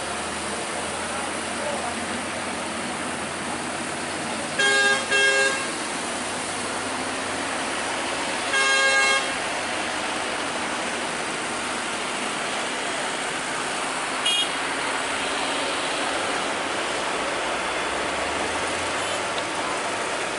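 Steady road noise of heavy vehicles' engines, broken by horn blasts: two short toots about five seconds in, a longer blast a few seconds later, and a brief fainter toot further on.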